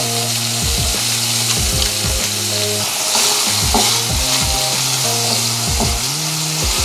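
Cubed chicken breast sizzling as it fries in a little oil in a nonstick pan, stirred and turned with a wooden spatula. Background music with a steady beat plays underneath.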